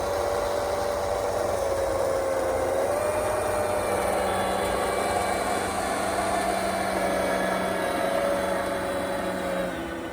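Electric motors of an RC model snowblower on a 3D-printed RC snowcat running steadily: a mid-pitched whine that wavers slightly in pitch over a rushing noise. Near the end one lower tone drops out and the sound eases a little.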